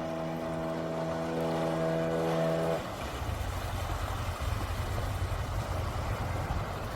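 Sea-Doo 3D jet ski's Rotax 787 RFI two-stroke twin running at steady revs with an even tone. About three seconds in, the tone drops off suddenly and a rough, uneven low rumble takes its place.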